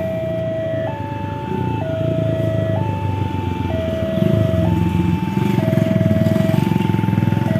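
Railway level-crossing warning alarm sounding, an electronic two-tone signal alternating steadily about once a second between a lower and a higher note. Under it runs a low engine rumble that grows louder about four seconds in.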